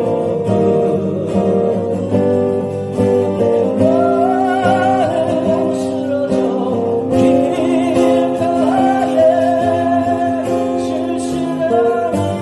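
Acoustic guitars playing a song, with a held, sliding melody line above the chords.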